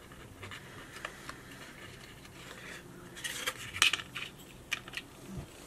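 Faint rustling and light taps of a cardstock paper piece being handled, with a few short clicks about three to four seconds in as it is set down on a cutting mat.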